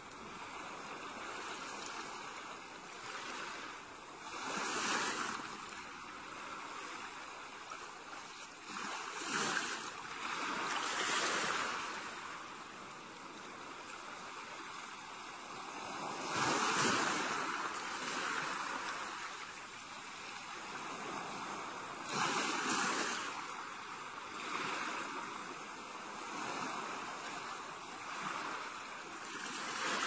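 Small ocean waves breaking and washing up the shore, with a steady hiss of surf that swells every few seconds as each wave comes in, the largest a little past the middle.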